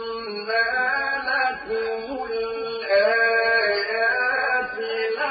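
A man reciting the Quran in the melodic mujawwad style, singing long drawn-out, ornamented phrases.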